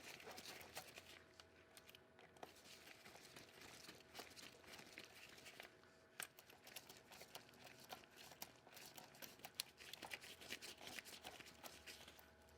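Faint, scattered small clicks and ticks of an Allen wrench working the small cap screws of a Warn Premium locking hub as they are tightened down.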